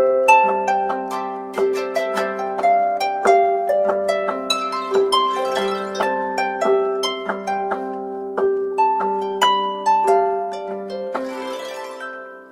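A Samsung Galaxy alarm tone: a harp-like plucked melody over a repeating low figure, fading out near the end.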